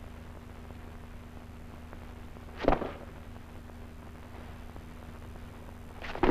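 Steady hum and hiss of an old film soundtrack, broken twice by a short, loud, sudden sound: once about two and a half seconds in and once near the end.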